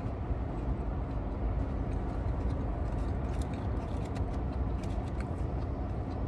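Steady low rumble inside a car's cabin, with faint scattered clicks and small handling noises as the eater chews and picks at food in a container.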